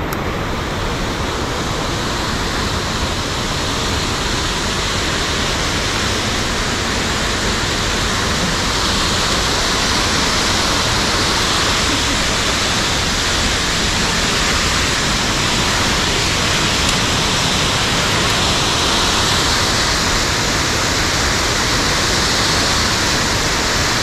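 Loud, steady rush of whitewater from a mountain stream swollen by rain into a torrent.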